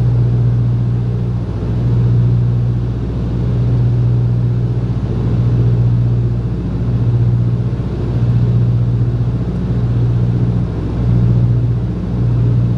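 Beech 18's twin radial engines droning steadily on final approach, heard inside the cockpit. The two engines run slightly out of step, so the drone swells and fades about every second and a half.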